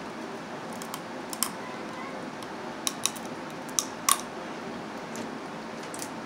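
Steamed blue crab shells cracking and snapping as they are broken apart and eaten: a string of sharp, irregular cracks, loudest around four seconds in, over a steady low room hum.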